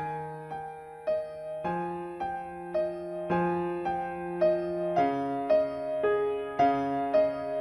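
Slow piano music: single notes struck about twice a second over held low notes that change every couple of seconds.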